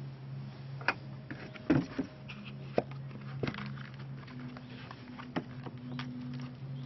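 Hard cast-resin orgonite pucks clicking and knocking as they are handled and popped out of a silicone mold beside a metal tray. The sharp knocks come at irregular intervals over a steady low hum.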